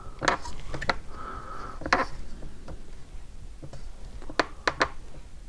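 Light clicks and taps of fingers handling a wooden ship model while pressing a thin wooden moulding strip into place, a few scattered clicks with three close together near the end.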